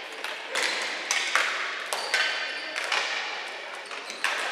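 Ball hockey play: a string of sharp clacks from sticks striking the ball, each other and the boards, about two a second, each ringing on in the arena's echo.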